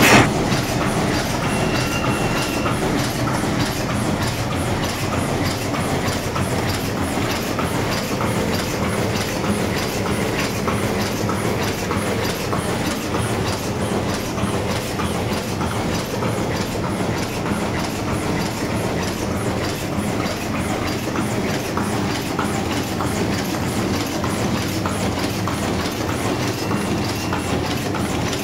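High-speed automatic paper cup making machine running, its forming turret and cams giving a rapid, even mechanical clatter at a steady pace.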